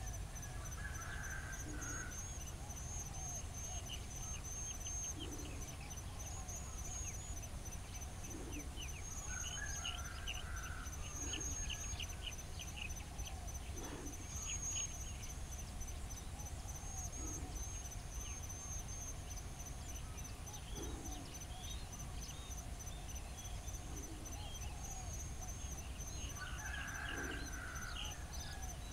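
Insects chirping steadily in a high, pulsing trill, with faint short bird calls now and then over a low steady hum.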